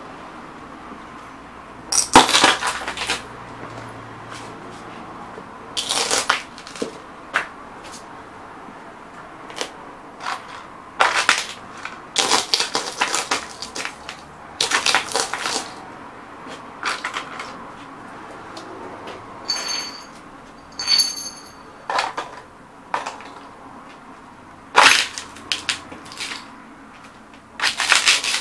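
Cowboy boots stomping on vintage radio vacuum tubes on a concrete floor: irregular sharp crunches and pops of the tubes' glass breaking, coming in clusters every few seconds.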